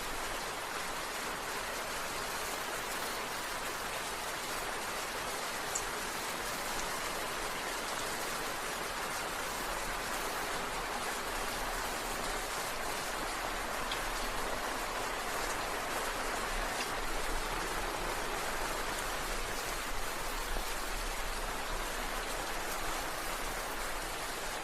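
Steady rainfall, an even hiss of drops falling on a surface, with a few faint ticks of single drops.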